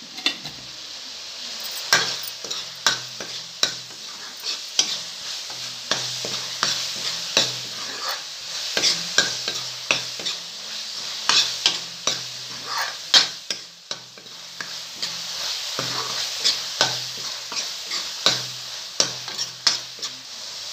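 A steel spoon stirring and scraping onions, green chillies and tomatoes frying in mustard oil in a kadhai: a steady sizzle with frequent sharp clicks and scrapes of the spoon against the pan.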